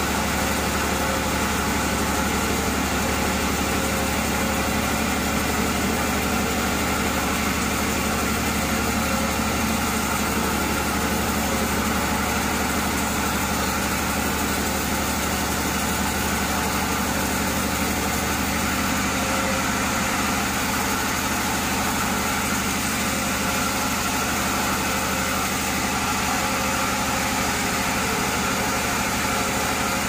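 Vertical band sawmill running with a steady mechanical drone as its blade saws lengthwise through a large burl log.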